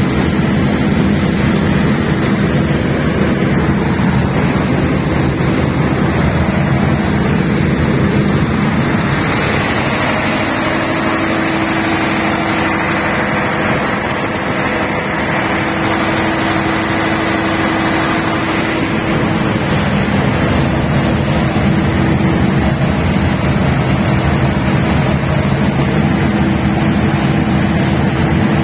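Large 500 kVA diesel generator set running steadily, a loud, even engine drone with a steady high whine above it.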